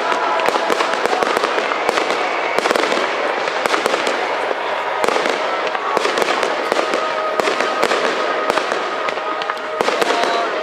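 Aerial fireworks display: shells bursting in quick succession, many sharp bangs a second over a continuous crackle.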